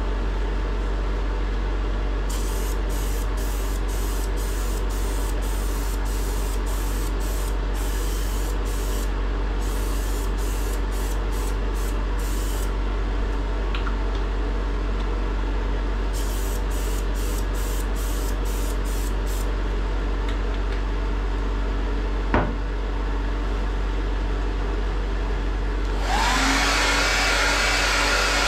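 Preval aerosol spray gun hissing in rapid runs of short bursts, in two spells, as the last coat of tub refinishing coating is sprayed and its edges feathered, over a steady background hum. Near the end a hair dryer switches on and blows steadily.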